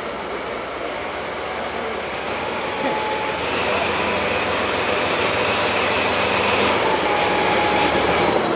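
DE10 diesel-hydraulic locomotive running at low speed, its diesel engine and rolling wheels growing louder about three seconds in as it passes close by.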